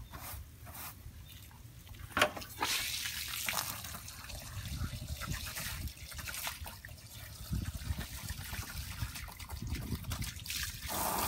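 A few quick brush strokes scrubbing vinyl siding, then, about two and a half seconds in, a garden hose spraying water onto the siding: a steady splashing hiss that grows louder near the end.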